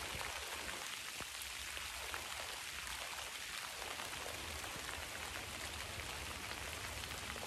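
Steady rain falling on a pond, made up of many small drop hits.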